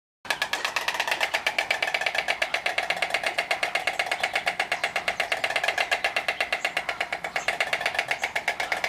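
White storks bill-clattering: a rapid, steady run of hard clicks as the bill snaps open and shut, the stork's clattering display.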